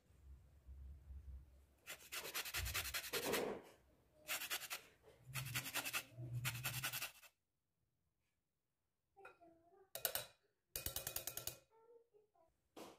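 Orange peel grated on a flat metal hand grater over a glass bowl: a run of scraping strokes, a pause of about two seconds, then a few more strokes.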